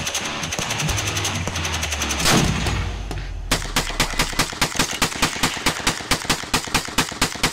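Rapid gunfire from a drum-fed long gun, the shots coming evenly at about five a second through the second half. The first part is a denser run of shots over a low steady drone.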